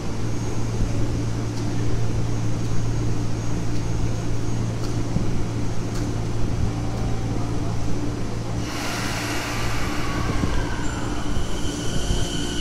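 Rinkai Line train in the station: a steady low hum, then from about nine seconds in a louder hiss with high, steady squealing tones from the wheels and rails.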